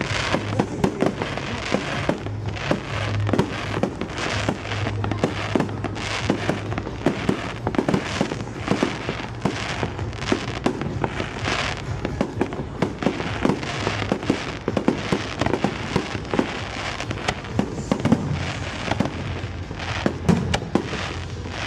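Fireworks bursting in rapid, irregular succession, a dense run of bangs and crackles, with music playing underneath.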